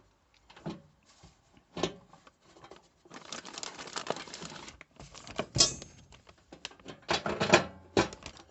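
Clicks, knocks and a scraping rattle from an old microwave oven being handled while its stuck turntable is worked loose. There is a sharp click a little past halfway through and a quick cluster of knocks near the end.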